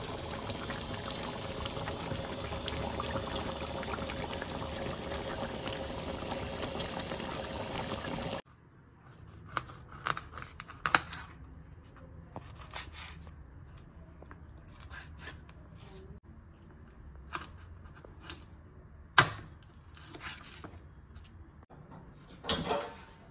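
Curry simmering in a pan, a steady bubbling hiss that stops abruptly about eight seconds in. After it, a kitchen knife cuts raw fish on a wooden chopping board, making scattered knocks and clicks, the loudest a sharp knock well past the middle.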